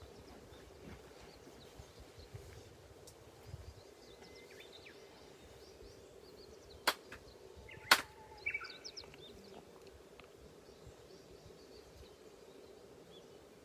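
Two sharp handclaps about a second apart, the double clap (kashiwade) of Shinto worship at the ceremony's offering rite. Birds chirp briefly just after, over a faint steady hum.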